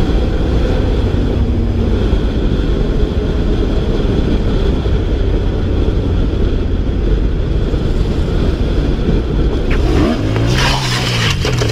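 Motorcycle ridden at speed: engine running under heavy wind rush on the on-board microphone. About ten seconds in comes a sharp knock, then the engine note swings up and down under a loud scraping hiss as the bike crashes.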